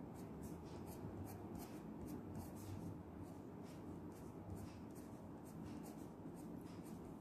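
Graphite pencil scratching faintly on drawing paper in quick short strokes, about two or three a second, as eyelashes are flicked in.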